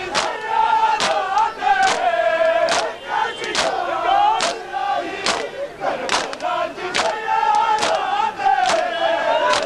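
Large crowd of mourners chanting a lament in unison while beating their chests with open hands (matam). The slaps land together in a steady beat, a little faster than once a second, under the chant.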